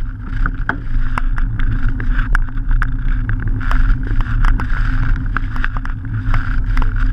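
Knobbly mountain-bike tyre rolling on tarmac, a steady low rumble, with frequent irregular clicks and rattles from the bike.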